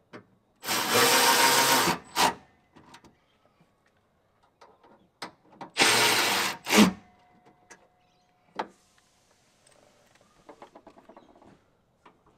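Cordless drill-driver spinning bolts into an aluminium battery mount in two runs of about a second each, each ending in a sharp click. Faint clicks and rattles of handling fill the gaps.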